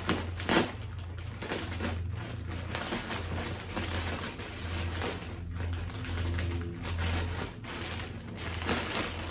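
A package being cut open with a small knife and pulled apart, a dense run of rustling, crackling and scraping strokes, over a steady low hum.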